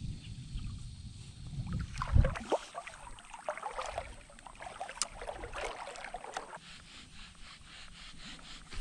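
Water splashing and sloshing close by while a fishing rod and reel are handled at the water's edge, with a loud low thump about two seconds in.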